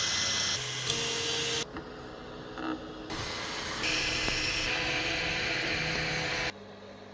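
FDM 3D printer running: a steady hiss with a few held mechanical tones underneath. The sound changes abruptly several times as short takes are cut together.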